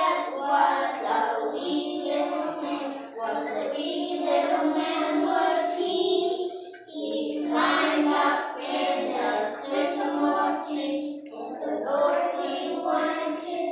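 A group of young children singing a song together, with two brief breaks between lines.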